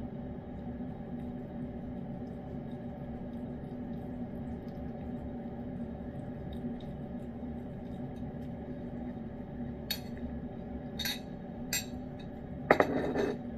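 Steady low hum, then a few light clinks of a spoon and ceramic dish, and near the end a louder clatter as the ceramic dish is set down onto a ceramic bowl.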